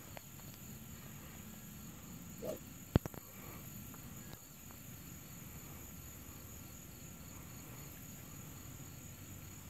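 A golf driver striking a teed ball: one sharp, loud crack about three seconds in. Steady insect chirring runs underneath.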